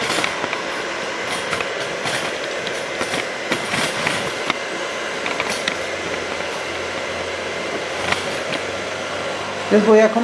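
Steady whir of a powered-on Elite 140 inverter welder's cooling fan, with scattered light clicks and knocks as the machine is handled. A man's voice comes in near the end.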